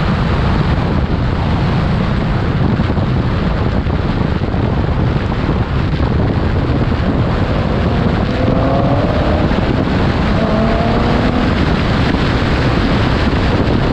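Heavy wind buffeting on the microphone and tyre and road rumble from cars moving side by side at speed. About eight to eleven seconds in, a faint engine note rises in pitch a couple of times under the wind.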